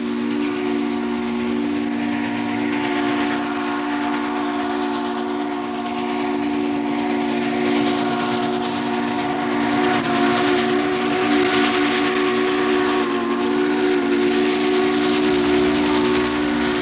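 Steam locomotive's chime whistle sounding one long, steady multi-note chord as the engine approaches under steam, with steam hiss beneath it.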